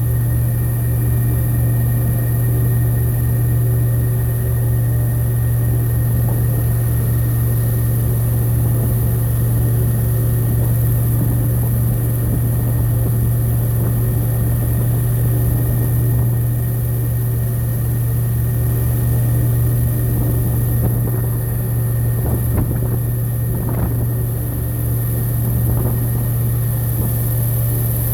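Airboat engine and its big air propeller running steadily: a loud, constant low drone with a fast even throb underneath.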